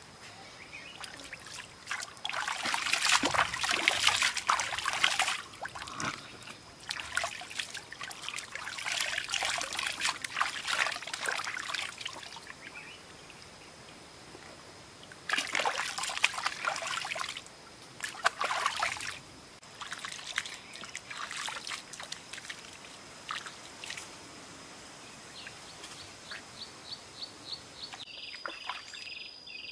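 Shallow stream water splashing and trickling as hands scoop and rub it over bare feet, in several bursts a few seconds long with quieter gaps between. A steady high insect whine runs underneath, and near the end a quick run of chirps leads into a pulsing call.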